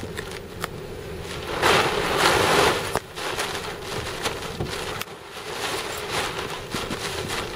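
Sea spray from a wave breaking over a seawall splashes onto a car's windshield and roof, heard from inside the cabin: a loud rushing splash starting about a second and a half in and lasting about a second and a half, then scattered ticks of drops.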